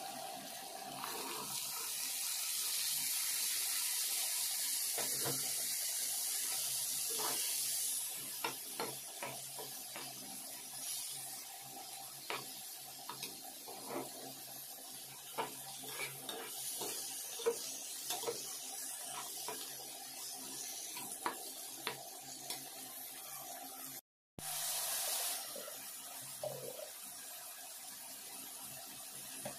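Malabar spinach berries, onions and green chillies sizzling in hot oil in a wok, loud and steady for the first several seconds. After that, a metal spatula clicks and scrapes against the pan as the mix is stirred over a fainter sizzle.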